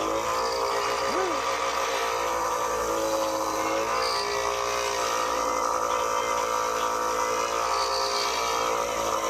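A power tool running steadily, its pitch shifting a few times as it works, used to clean old thread-locker off the brake bolts.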